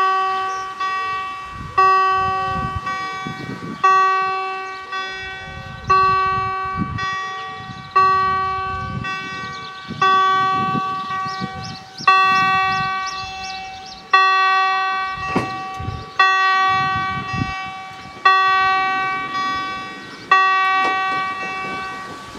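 German level-crossing warning bell, struck once about every two seconds and ringing out after each stroke, warning that a train is coming and the barriers are closing. The last stroke falls about twenty seconds in and rings away as the barrier comes down.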